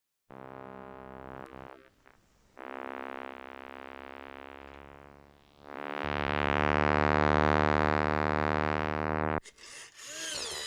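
Long, steady droning notes rich in overtones, in three held sections. The last section is the loudest; it brightens and then mellows before cutting off sharply near the end.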